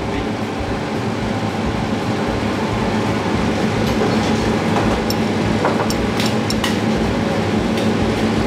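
Steady machine hum and rushing noise with a constant low drone. A few light clicks of metal tweezers on china plates come in around the middle.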